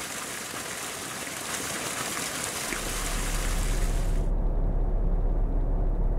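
Water gushing and splashing down a stone channel in a steady rush. About three seconds in, a deep low rumble rises under it. A little over four seconds in the splashing cuts off abruptly, leaving the rumble alone as the loudest sound.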